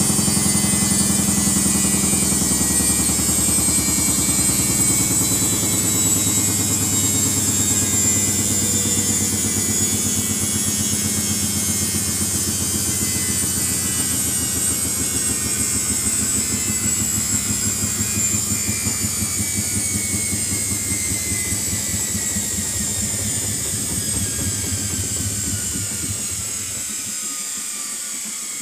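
Samsung front-loading washing machine's drum spinning down, its speed falling from about 670 to about 170 RPM: a motor whine glides slowly down in pitch over a low drum rumble, both growing quieter, and the rumble drops away near the end.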